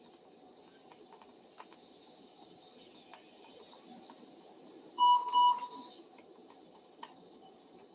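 Short two-pulse electronic beep from a LigaSure vessel-sealing unit about five seconds in, over a steady faint hiss of surgical suction.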